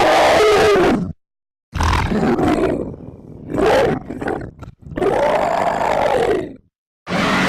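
Monster roar sound effect: a string of roars, each a second or two long, cut apart by short gaps of silence. The roar about five seconds in rises and then falls in pitch.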